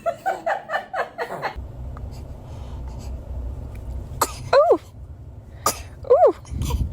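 Newborn baby sneezing: a run of about six short, quick sounds in the first second and a half, then two sharper sneezes about four and six seconds in, each trailing off in a falling squeak.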